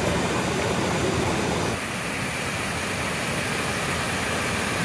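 Water rushing and cascading over rocks in a stream and waterfall: a steady, even rush, which shifts slightly in tone and drops a little in level about two seconds in.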